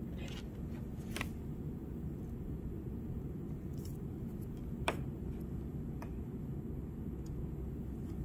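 A few sharp clicks and taps of an oscilloscope probe and alligator clips being handled and clipped onto breadboard leads, the loudest about five seconds in, over a steady low room hum.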